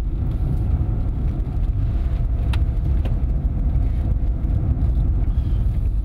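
Car driving, heard from inside the cabin: a steady low rumble of engine and tyres on the road, with one brief click about two and a half seconds in.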